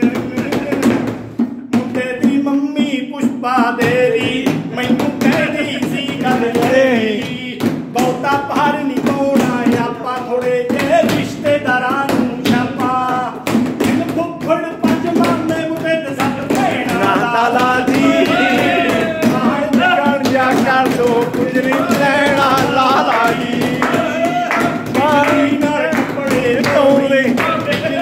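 A man singing a Punjabi song over a steady low backing tone, with sharp taps keeping time throughout.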